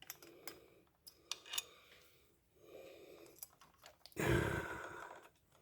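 Small clicks and light scraping of a screwdriver working a screw out of a metal plate in a cassette deck's tape mechanism, with a louder breathy rush about four seconds in.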